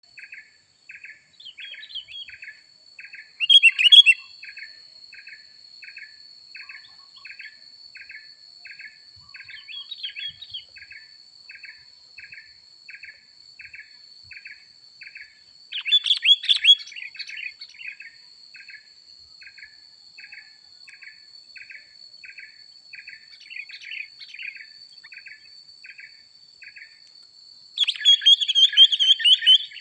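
Wild songbirds calling in several short, loud bursts of chirps and twitters, the longest near the end. Behind them runs a steady, regular chirping a little more than once a second, together with a constant thin high whine.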